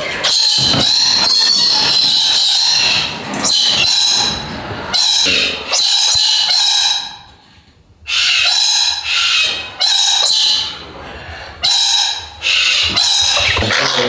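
Parrots screeching: loud, harsh calls coming one after another, with a short lull about seven seconds in.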